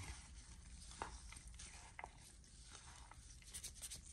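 Faint rustling of a plastic-gloved hand mixing crumbly grated cassava, with a few soft clicks.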